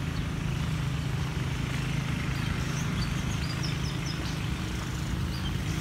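Steady outdoor background rumble, low and even, with faint high chirps of small birds through the second half.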